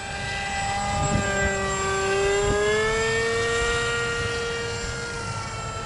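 Electric motor and propeller of a foam RC parkjet whining in flight. The pitch climbs over the first couple of seconds, then holds steady while the sound slowly fades a little.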